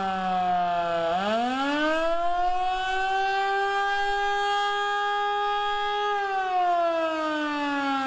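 Federal Signal Model 2 outdoor warning siren sounding the attack signal. Its pitch slides down to a low point about a second in, climbs quickly, holds high for about three seconds, then slides down again near the end.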